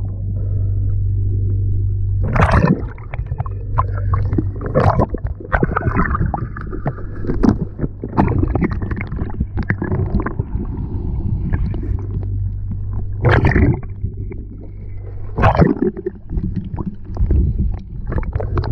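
Underwater sound of a fight with a freshly speared ling (cobia): a steady low drone of boat engines carried through the water, under crackling bubbles and knocks, with four loud splashing bursts as the fish thrashes on the shaft line.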